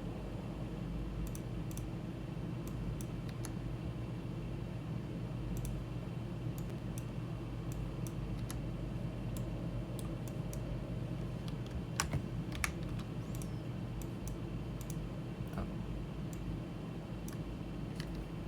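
Computer keyboard keys and mouse buttons clicking at scattered, irregular moments, with a sharper pair of clicks about twelve seconds in, over a steady low hum.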